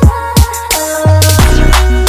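Loud electronic background music with a deep bass line and deep drum hits that drop in pitch, two of them in the first half second.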